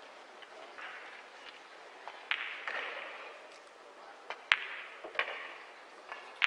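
A pool shot: a sharp click of the cue tip striking the cue ball, then a second click about two thirds of a second later as the cue ball hits the object ball and pots it.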